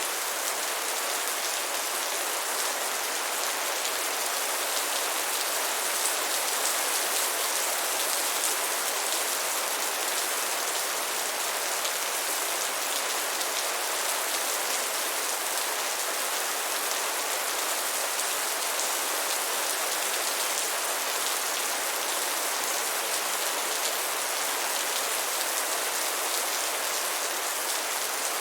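Steady rain falling on a surface: an even, unbroken hiss of many drops, with no thunder.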